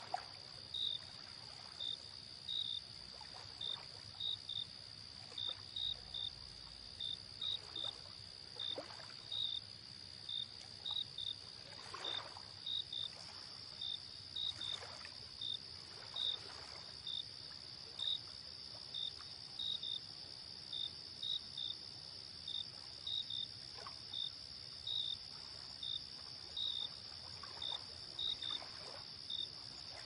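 Crickets chirping in short pulses, about one or two a second, over a steady high-pitched insect drone, with soft lapping of lake water now and then.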